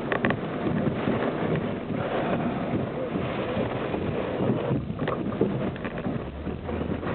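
Strong, gusty storm wind buffeting the microphone, with a vehicle running underneath.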